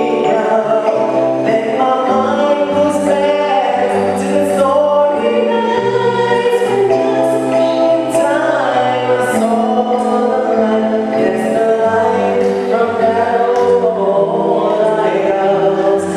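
Church choir singing a hymn in harmony, on long held notes.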